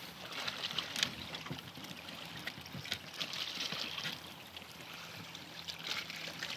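Water lapping and trickling against a small wooden boat's hull, with scattered light clicks and rustles.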